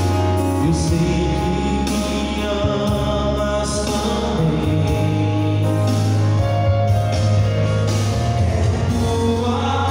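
A male voice singing a slow worship song over an electronic keyboard that plays long-held bass notes and sustained chords.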